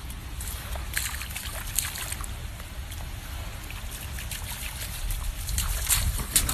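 A raccoon splashing and dribbling water in a shallow puddle, with many small splashes and clicks over a steady low rumble.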